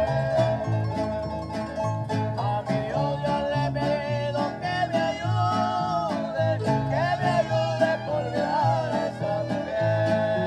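Instrumental break of Tierra Caliente arpa grande music: a sustained, sliding violin melody over the large harp's plucked bass line and strummed string chords.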